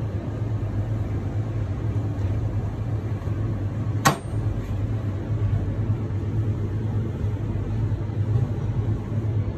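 Steady low machine hum, with one sharp click about four seconds in.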